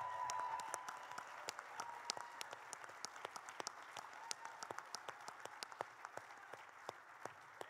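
Audience applauding: many people clapping, loudest at first and gradually dying away.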